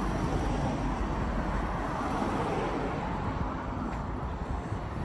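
Steady outdoor city ambience with a low rumble of wind on the microphone and no clear single event.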